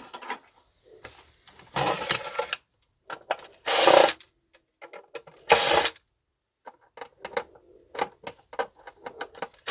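Plastic parts of a vacuum cleaner being pried and handled: three short scraping, rattling noises followed by a run of quick clicks near the end.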